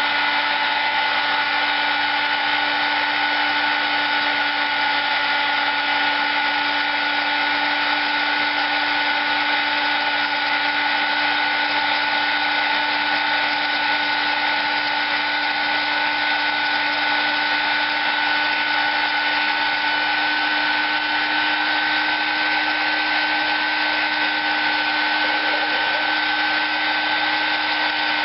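High-speed rotary tool spinning a 180-grit sanding disc, porting and polishing the ports of a Predator 212 engine's aluminium cylinder head: a steady whine at constant pitch.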